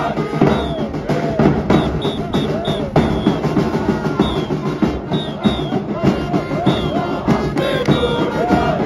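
Music with a driving drum beat and a repeating melodic figure.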